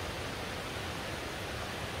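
Fast-flowing river, running high with snowmelt, making a steady rushing noise.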